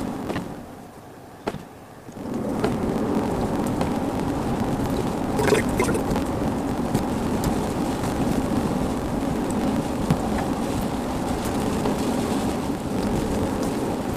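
Car driving, heard from inside: a steady rumble and hiss of engine and tyres on the road, quieter for the first two seconds and then even for the rest.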